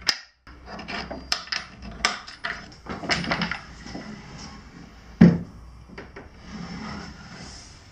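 A wooden dinghy rudder blade being handled and swung on its bolt pivot in the wooden rudder head: scattered knocks of wood on wood and small clicks of the metal pin and washers, with one louder knock about five seconds in.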